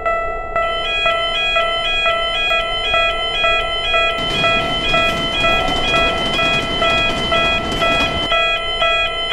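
Japanese railroad crossing alarm bells ringing in a steady repeating "kan-kan" pattern, several bells at different pitches overlapping. About four seconds in, a train's rushing noise joins for about four seconds, then stops.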